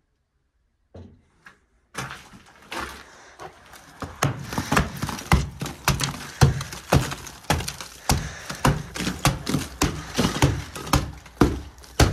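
Hammer blows knocking old plaster off a wall of wooden lath, with plaster cracking and chunks crumbling down. The blows start about two seconds in and settle into about two strikes a second.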